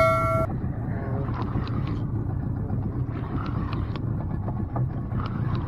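New Yamaha outboard motor running steadily at low trolling speed, a low rumble with wind and water noise around the small boat. A synthetic bell chime ends about half a second in, and faint light ticks come now and then.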